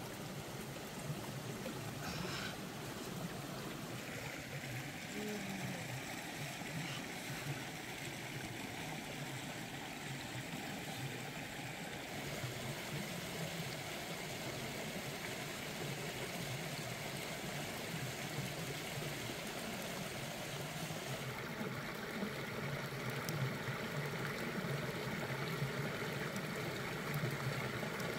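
Water of a rocky stream running steadily, an even rushing that shifts in tone a few times.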